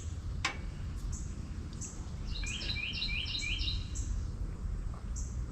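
A songbird singing: a quick run of about half a dozen repeated chirping notes in the middle, with a few scattered higher chirps, over a steady low background rumble. A single sharp click comes about half a second in.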